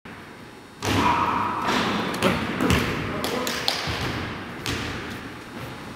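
Scattered thuds and knocks on a wooden gymnasium floor, footsteps and court impacts picked up close by a camera resting on the floor, echoing in the large hall.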